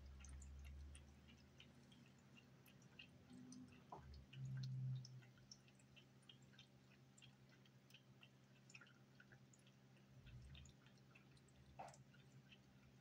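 A cat lapping water from an electric pet drinking fountain: faint, quick wet ticks, several a second and a little irregular, over a low steady hum.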